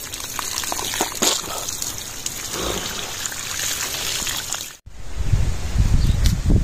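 Water pouring from an overhead hose and splashing on a man and the ground. It cuts off suddenly about two-thirds of the way through and gives way to a louder low rumble.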